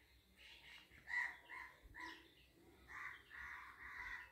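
A bird calling faintly several times: short calls about a second and two seconds in, then longer calls near the end.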